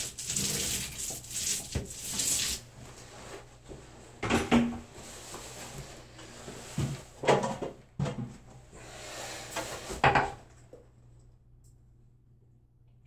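A roller spreading wallpaper paste on a wall, running in hissing strokes for the first couple of seconds. After that come several separate knocks and clatters, about four to six seconds apart.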